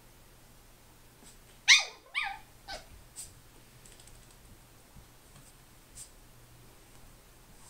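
Chi-poo puppy yipping: a sharp high yip about two seconds in that falls in pitch, a second yip right after it, then a couple of short, fainter sounds.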